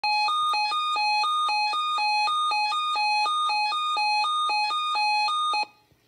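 Electronic two-tone alert sounding before a NOAA Weather Radio broadcast, flipping rapidly between a low and a high pitch, about two low-high cycles a second. It cuts off abruptly shortly before the end.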